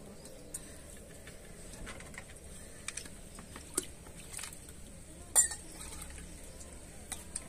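Scattered light clinks and knocks of steel plates and tumblers, with one sharp metallic clink about five seconds in.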